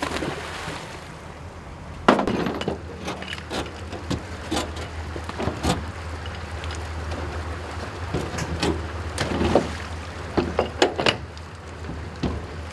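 Irregular splashes and knocks as rainbow trout are handled and released during stocking, over a steady low hum.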